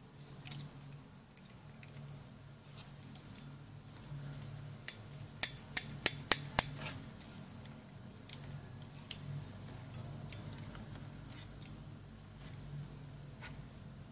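Folding metal multi-tool being handled, with sharp metallic clicks and snaps of its parts, scattered throughout and coming in a quick cluster about five to seven seconds in.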